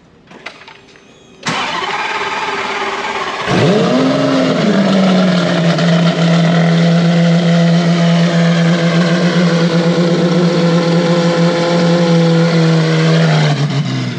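Lamborghini Aventador SV's V12 engine on its first start after a clutch replacement. A few clicks, then the starter cranks for about two seconds and the engine catches with a brief flare in revs. It settles into a steady idle for about ten seconds and is shut off near the end, a short run because the cooling system is empty.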